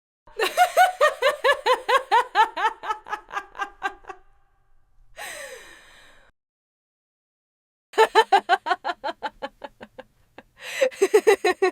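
Human laughter: three separate laughs of rapid repeated 'ha' pulses, with a short breathy exhale between the first two and silence between each.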